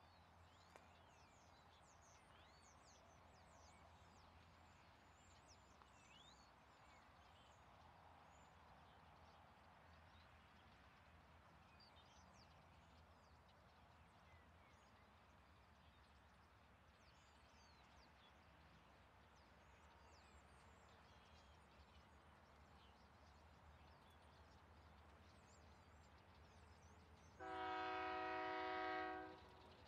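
Faint open-air background with small birds chirping, then near the end a Union Pacific freight locomotive's air horn sounds one steady blast lasting about two seconds.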